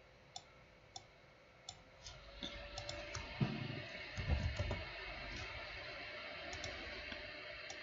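Computer mouse clicking, several short sharp single clicks, then soft keyboard keystrokes and a few dull thuds as a short entry is typed.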